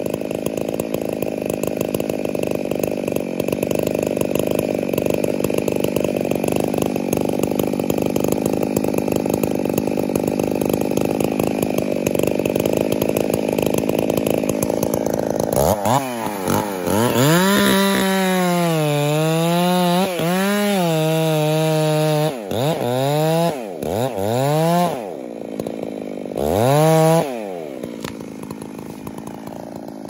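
Stihl two-stroke chainsaw making a felling cut through a tree trunk, a steady rough cutting sound for about fifteen seconds. The saw then comes free of the wood and revs high with its throttle blipped several times, before winding down toward idle near the end.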